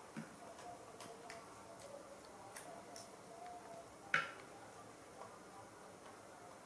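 Faint, scattered clicks and ticks of a monkey eating with its hands from plastic plates: fingers tapping the plates, with lip-smacking and chewing. One sharper click about four seconds in.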